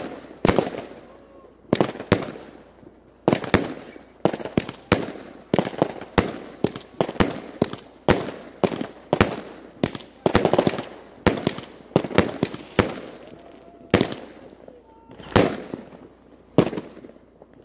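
Aerial fireworks bursting in a rapid, irregular series of sharp bangs, about one or two a second, each with a short echo.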